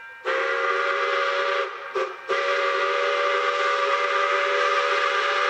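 Steam locomotive's chime whistle, several notes sounding together: a blast of about a second and a half, a very short toot, then a long blast of about three and a half seconds.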